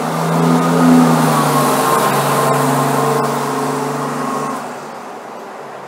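Diesel engine of a coach bus accelerating away from the curb, loudest about a second in, then fading as the bus pulls off, mostly gone by about four and a half seconds in.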